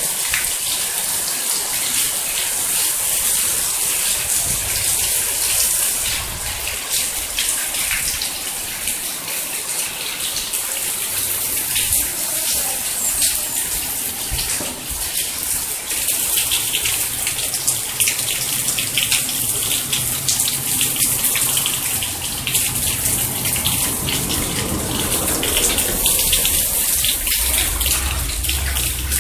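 Heavy rain pouring down on clay tile roofs and a paved street: a steady hiss dense with the patter of drops.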